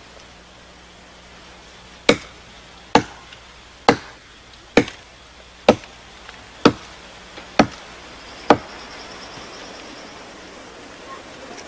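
Stone axe chopping into the trunk of a small tree: eight sharp chops at an even pace of about one a second, then stopping.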